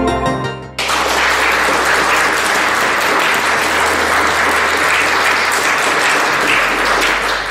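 Background music fades out, then a crowd's applause cuts in suddenly about a second in, holds steady and fades away near the end.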